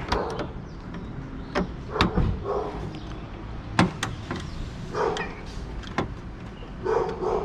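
Scattered sharp clicks and knocks, about six, of a car trunk latch and the metal around it being handled as the new latch is seated in the trunk lid.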